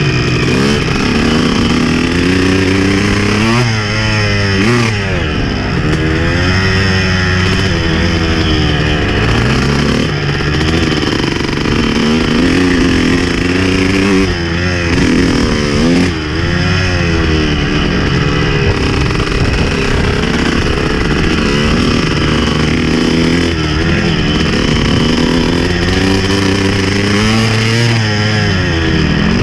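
Honda motocross bike's engine revving up and down over and over as it is ridden along a dirt trail, rising and falling in pitch every second or two.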